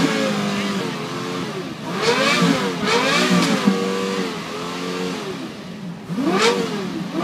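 Lexus LFA's 4.8-litre V10 revved while parked, in a series of quick blips, the pitch shooting up and dropping straight back each time, twice in close succession a few seconds in.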